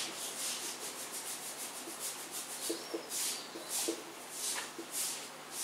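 Marker pen rubbing and scratching across a whiteboard in a series of short strokes as words are written.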